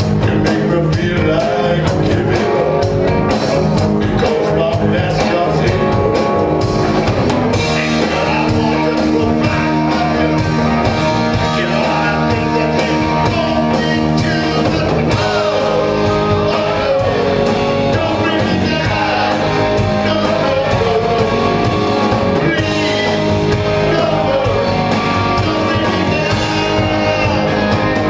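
Live rock band playing: a lead vocal over electric guitars and a drum kit.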